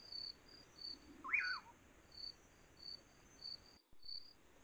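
Insect chirping: a short high chirp repeating about three times a second. One brief call a little over a second in sweeps up and then back down. All sound drops out for a moment shortly before the end.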